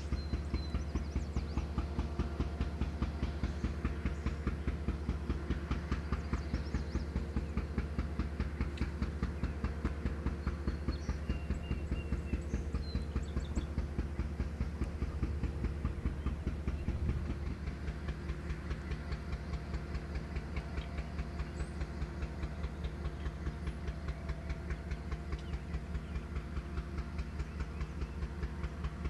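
Diesel freight locomotive running with a fast, even pulsing beat and a steady low hum. The level steps down a little about seventeen seconds in.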